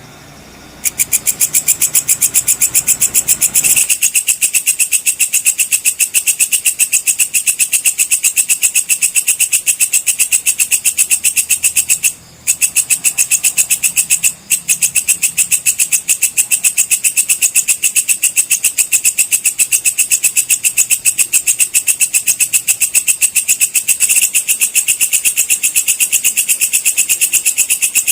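Walang kecek (belalang kecek), a Javanese katydid, calling: a rapid, even, high-pitched series of short chirps that starts about a second in and breaks off briefly twice in the middle.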